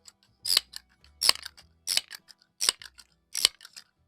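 Crosman 1322 multi-pump pneumatic air pistol being pumped up by its fore-end pump handle: five quick, evenly spaced strokes about three-quarters of a second apart, each a short sharp rush of compressed air and metal. More pumps mean more power for the shot.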